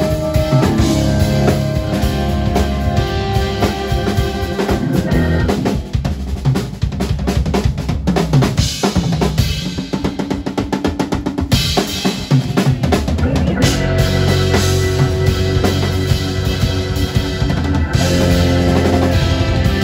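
Live jazz-fusion band with electric guitar, keyboards, bass and a Pearl drum kit, the drums prominent. About six seconds in the band thins out to mostly drums for several seconds, then the full band comes back in with sustained chords.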